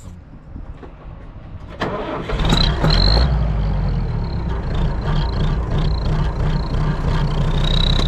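Deutz DX tractor's diesel engine starting about two seconds in, then running steadily with a strong low rumble.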